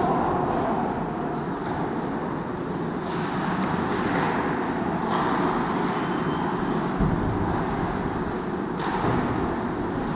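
Ice rink game noise: skates scraping across the ice in a steady hiss that swells several times, with a dull low knock about seven seconds in.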